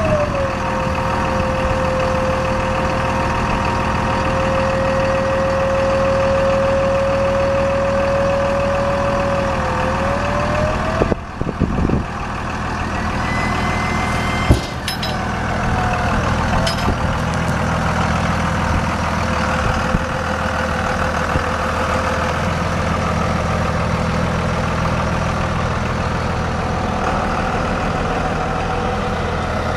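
A 5.9-litre inline-six diesel pickup engine idling steadily. For about the first eleven seconds a steady whine sits over the idle, then bends upward and stops, followed by a couple of sudden clicks or knocks.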